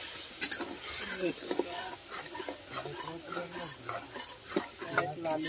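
Metal spatula stirring and scraping thick chilli sauce around a steel wok, in repeated strokes, with a light sizzle of the sauce frying in oil.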